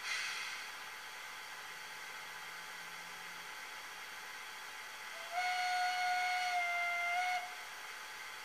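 Factory sound decoder of a Brawa 40411 PKP Pt31 steam locomotive model playing through its small onboard speaker: a short burst of steam hiss, then, after about five seconds, a steady steam whistle blast lasting about two seconds, over a faint constant hiss.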